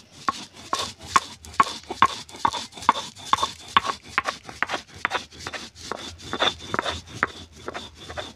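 Stone roller on a flat stone grinding slab (sil-nora), pushed back and forth to grind dry-roasted cumin and dried red chillies: repeated stone-on-stone scraping and knocking, about two strokes a second.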